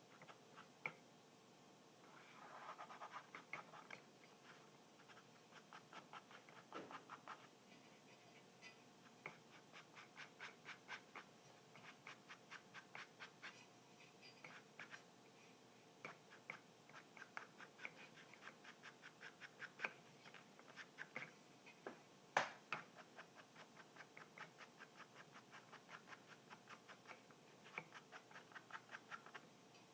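Quiet, fine scratching on a loudspeaker during a foam surround repair: runs of small rapid clicks, several a second, with one sharper click about two-thirds of the way through.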